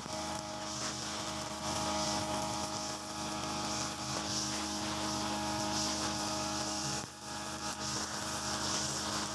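Mitsubishi TU43 two-stroke brush cutter running at steady high revs, its nylon-line trimmer head cutting grass. A high hiss swells and fades about every second and a half, and the sound dips briefly about seven seconds in.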